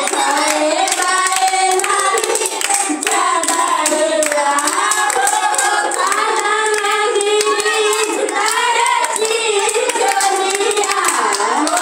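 A woman singing a devotional song into a microphone, with women and children singing along and clapping their hands throughout.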